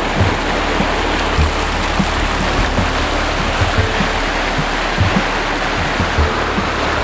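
Rushing river water, a steady loud hiss, with scattered short low bumps.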